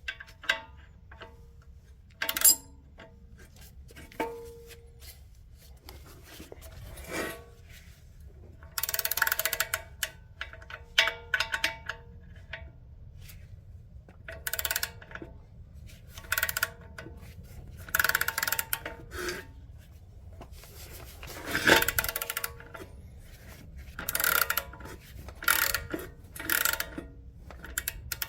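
Socket ratchet clicking in repeated strokes with metallic clinks, as a 17 mm nut is run down a stiff stud on a catalytic converter flange. A few scattered clicks come first, then from about a third of the way in, short bursts of clicking follow each other every second or two.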